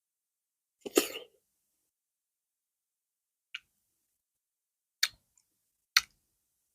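Close-miked eating mouth sounds: one short throaty sound, like a gulp, about a second in, then three short sharp mouth clicks spread over the next few seconds.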